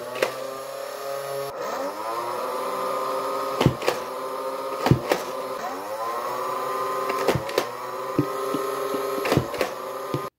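Nerf Mega Motostryke's flywheel motors, on NiMH batteries at 4.8 volts, whining steadily and spinning up twice with a rising pitch. Sharp snaps come every second or so as Mega darts are fired through the flywheels.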